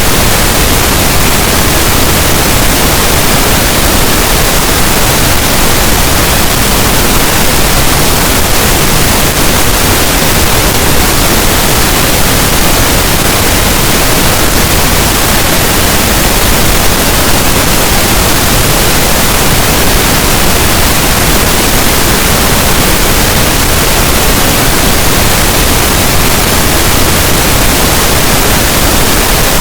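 Steady, loud pink noise: an even, unchanging hiss spread across all frequencies, played continuously as a sleep sound to mask sudden noises.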